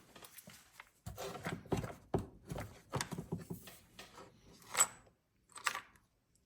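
Light irregular clicks and knocks of a small drill bit being picked out and fitted while stepping up to a bigger bit size. About three-quarters of the way through comes a sharper metallic tick that rings briefly.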